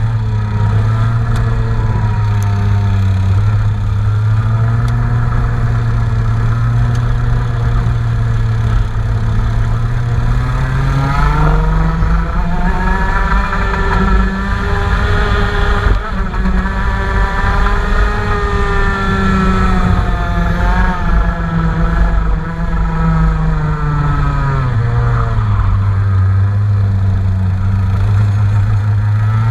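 Engine on a test run, running steadily, then brought up to a higher steady speed about ten seconds in and held there for roughly twelve seconds. Near the end it drops back to its lower speed, and it starts to rise again right at the end.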